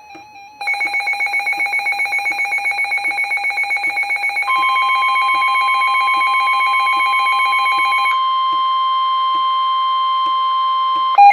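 Emergency Alert System alarm tones for a severe thunderstorm warning. A loud, rapidly pulsing two-pitch alarm starts just under a second in. About halfway through, a steady single-pitch tone joins it: the NOAA Weather Radio warning alarm tone. Near three quarters of the way through the pulsing stops, and the steady tone carries on alone.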